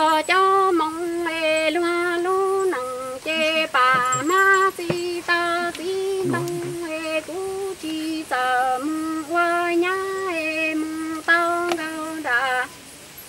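A woman singing Hmong kwv txhiaj, traditional sung poetry: one voice holding long notes on a nearly level pitch, with short wavering turns between phrases. The singing stops about half a second before the end.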